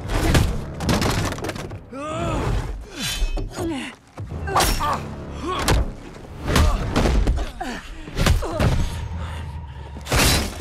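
Film sword-fight soundtrack: a string of sharp blade strikes and heavy thuds, with grunts and groans of effort, over a music score.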